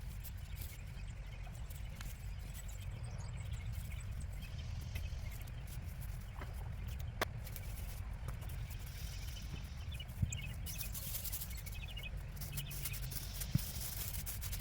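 Outdoor garden ambience while potatoes are being dug: a steady low rumble with a few brief knocks and clicks from the digging, faint bird chirps, and a high hiss rising in the second half.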